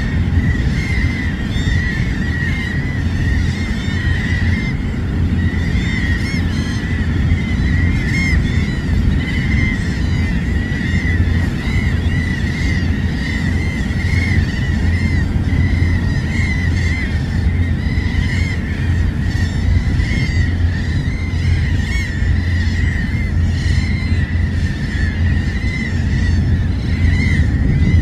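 Steady low rumble of surf breaking on a rocky shore, with a continuous chorus of seabird calls, many short rising-and-falling cries a second.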